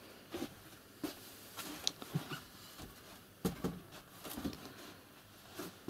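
Scattered light knocks and rustles from objects being handled and someone moving about a small room, some sharper than others.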